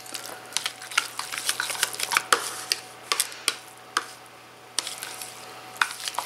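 A fork stirring spaghetti in sauce inside a divided meal tray, with irregular sharp clicks and scrapes as the fork knocks the tray, pausing briefly about four seconds in.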